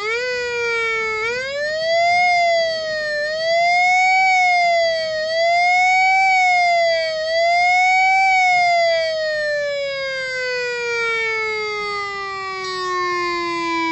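Whelen WS-2000 electronic siren's attack tone sounding through a bare 80-watt speaker driver held under a hand. The pitch shoots up at the start, then wavers up and down about once every two seconds. From about two-thirds of the way through it falls slowly and steadily, winding down.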